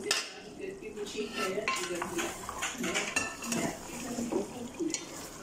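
A plastic spatula stirring thick mutton korma in an aluminium pot, knocking and scraping against the pot's sides in an irregular string of short clinks, with a metal lid clattering at the very start as it is taken off.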